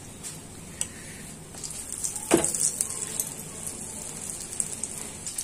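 Besan-battered stuffed green chilli pakoras deep-frying in hot oil, a sizzling crackle that grows stronger about a second and a half in. One sharp knock stands out a little after two seconds.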